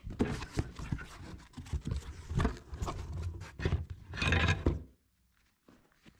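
Hands handling car parts, likely the new horn assembly and its wiring connector: a quick run of clicks, knocks and scrapes that cuts off abruptly near the end, followed by a few faint ticks.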